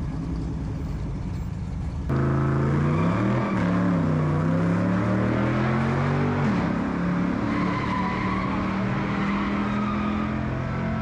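A car engine running. Its pitch rises and falls as it revs, then settles to a steady note. About two seconds in, a lower rumble gives way abruptly to this louder engine sound.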